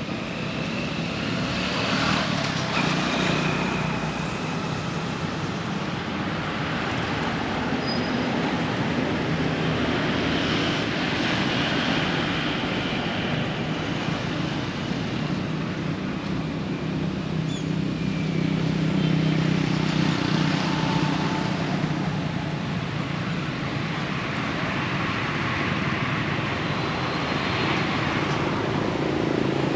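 Road traffic: motor vehicles passing one after another, each swelling and fading, over a low engine hum, with a few short bird chirps above it.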